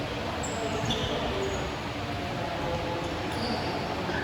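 Basketball game on an indoor court: a steady murmur of court and crowd noise, with about four short, high sneaker squeaks on the floor.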